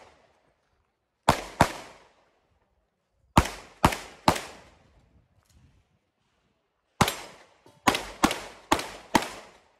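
Pistol shots fired by a competitor working through a practical shooting stage: ten sharp reports in quick groups, a pair, then three, then one, then four, each with a short echoing tail.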